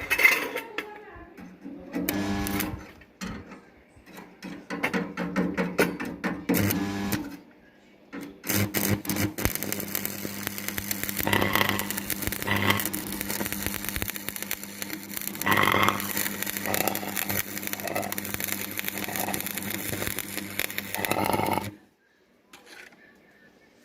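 Electric arc welding on 1 mm thin steel sheet: a crackling, buzzing arc over a steady mains hum. It is struck in short bursts during the first several seconds, then held as one continuous bead for about thirteen seconds before cutting off suddenly.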